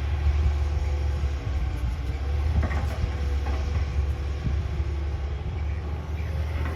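Excavator's diesel engine running steadily with a deep rumble, with a few light knocks about two and a half seconds in.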